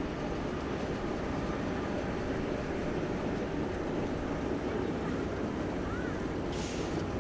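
Heavy amphibious vehicle engines running steadily, with a short hiss near the end.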